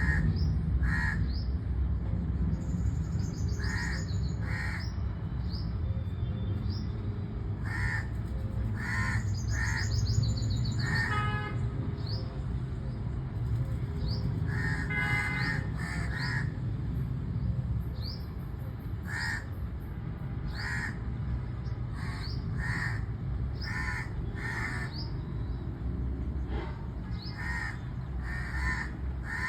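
A crow cawing repeatedly, in short harsh caws that come singly or in quick runs of two or three. Brief high chirps and a steady low rumble run underneath.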